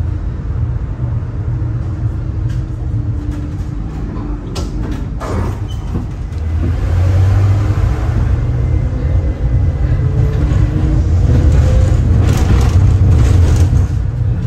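Tram running on its rails, heard from aboard: a steady low rumble that grows louder about halfway through as it picks up speed, with a faint rising whine and a few clacks from the wheels.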